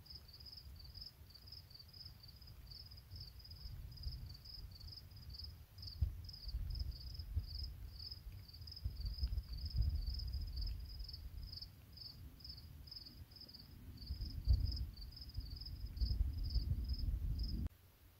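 Crickets chirping steadily, about three short high chirps a second, over a low rumble that swells and fades; both cut off suddenly near the end.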